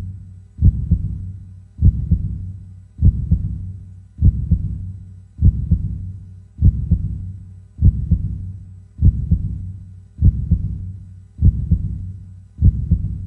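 Heartbeat sound effect: slow, steady lub-dub double thumps, one pair about every 1.2 seconds, each deep thud fading before the next.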